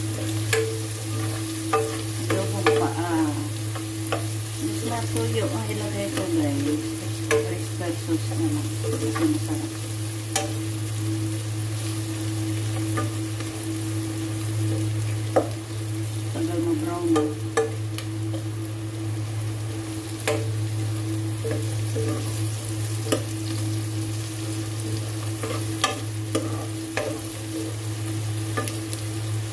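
Chicken feet browning in a frying pan, sizzling steadily while a utensil stirs them and clicks irregularly against the pan, over a steady low hum.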